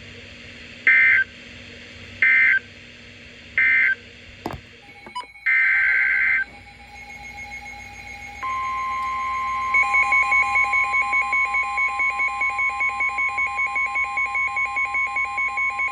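Emergency Alert System data tones: three short buzzy bursts of SAME data, the end-of-message code of the alert before, then a longer data burst opening the next alert's header. About eight seconds in, the steady 1050 Hz National Weather Service warning alarm tone starts, and from about ten seconds a fast beeping of about four a second joins it.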